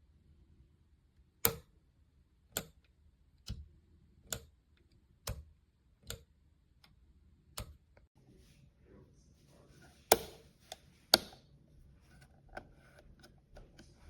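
A series of single sharp clicks at uneven spacing, roughly one a second, with two louder ones near the end.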